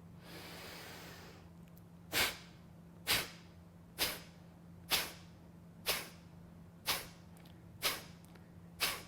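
Kapalbhati breathing: a soft breath for about the first second, then eight sharp, forceful exhalations out of the nose, about one a second, each pushed out by squeezing the belly in.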